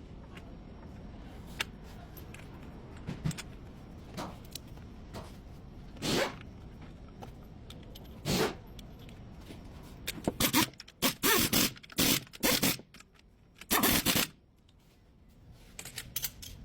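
Hand-tool work on a car engine mount: a few light clicks, then short scraping or rasping strokes that come singly at first and then bunch together in a rapid run of several strokes near the end.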